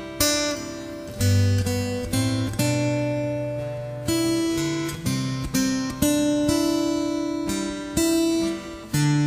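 Acoustic guitar playing chords, struck about once a second, each ringing out and fading before the next, with no singing.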